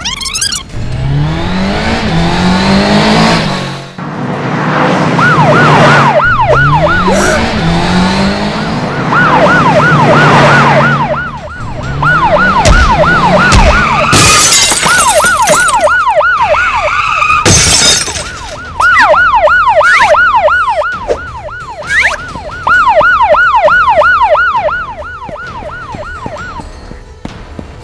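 Police car siren sound effect wailing in a fast, repeating yelp, with a car engine revving up again and again under it in the first half. A burst of hiss comes about halfway through, and a sharp crash a few seconds later.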